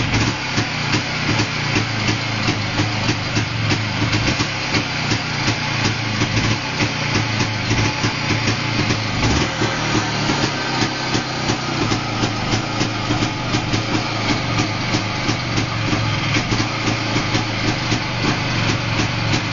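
Izh Planeta-2 motorcycle's single-cylinder two-stroke engine running steadily just after a cold start at about −10 °C, with an even, rapid exhaust beat.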